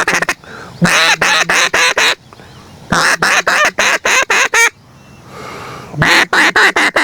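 Duck call blown in runs of rapid quacks, four runs with short pauses between them.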